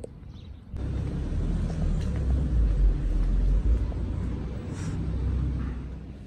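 A steady low rumble with a hiss over it starts suddenly about a second in and eases off near the end.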